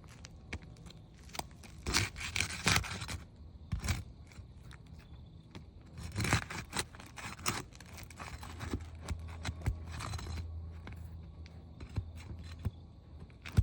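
Irregular bouts of scraping and tearing, with scattered sharp clicks, from asphalt roofing shingles being worked loose with a roofing tool. The loudest bouts come about two and six seconds in.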